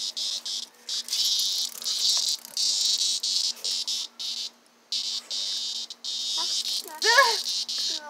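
A disturbed cicada buzzing in broken, stop-start bursts of about a second each. A short high-pitched whine near the end is the loudest moment.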